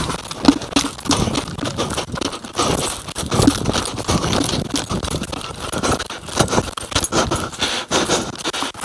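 Running footsteps with loose gear rattling and jangling, a dense, uneven stream of short knocks and clicks.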